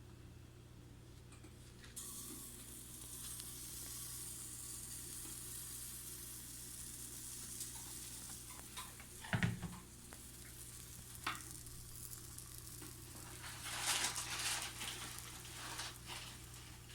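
Pancake batter sizzling in a hot frying pan, the sizzle starting about two seconds in and running steadily. A knock about halfway and a few clattering sounds near the end.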